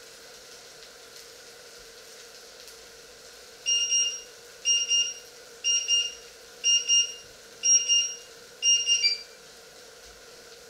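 An electronic beeper sounding six groups of rapid, high-pitched beeps, about one group a second, ending with a short lower blip.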